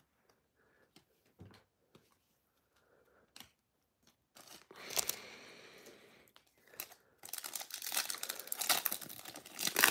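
Foil Panini Prizm trading-card pack being crinkled and torn open by hand. A few faint ticks at first, a brief crinkle about halfway through, then steady crinkling and tearing over the last few seconds.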